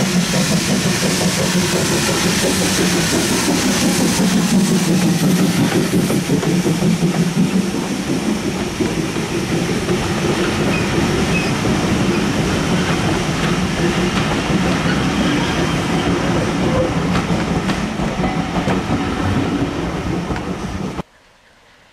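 Steam tank locomotive and its passenger carriages passing close by, the wheels clattering over the rails. The train sound cuts off suddenly near the end, leaving only a faint hush.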